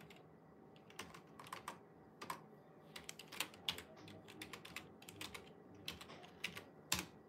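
Faint typing on a computer keyboard: irregular keystrokes.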